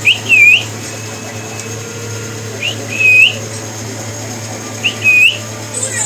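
Pet parrot whistling the same short call three times, about two and a half seconds apart: each is a quick high note followed by a dipping-then-rising whistle. A steady low hum runs underneath.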